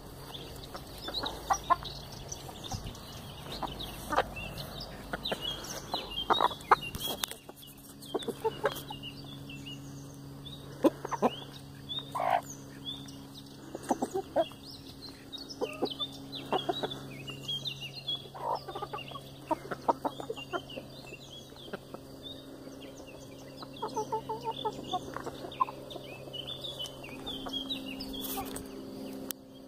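A flock of hens clucking, with short, louder squawks scattered irregularly throughout.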